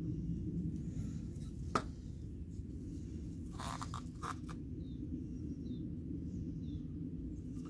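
A clear plastic cup of paint and a wooden stir stick being handled: one sharp click about two seconds in and a couple of short scrapes around four seconds, over a steady low hum.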